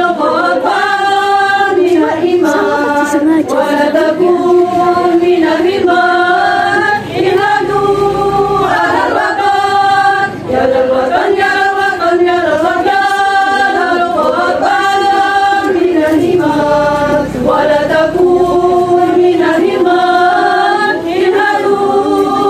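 Women's choir singing together in long held phrases, with short breaks for breath about seven and ten seconds in.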